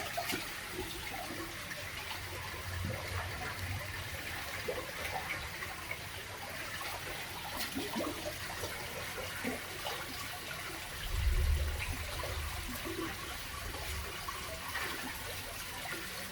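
Steady trickling and splashing water at a garden pond, with a brief low rumble about eleven seconds in.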